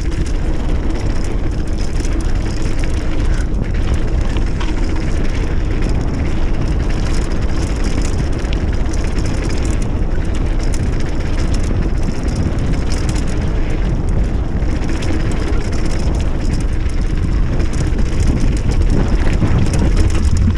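Wind buffeting an action camera's microphone while a mountain bike rolls fast along a dirt trail. Knobby tyres crunch over the ground and the bike keeps up a steady stream of small rattles and clicks over bumps.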